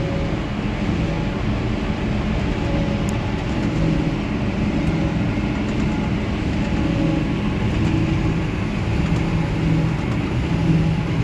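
Heavy farm machinery running steadily during a silage corn harvest: diesel engines of tractors and a forage harvester under load. A dense mechanical noise whose engine note wavers a little, with no distinct knocks or pauses.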